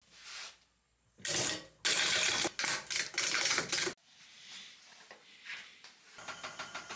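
Bursts of metallic jingling and clinking for about three seconds. From about six seconds in, a wood lathe runs with a high whine and a rapid, even pulse as it spins an epoxy-resin and pine-cone bowl blank.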